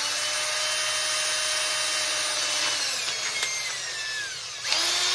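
A power drill runs a drill bit between 3/8 and 7/16 inch, boring out the centre of a fishing rod's butt end. The motor's whine sinks gradually past the middle, then speeds up again near the end.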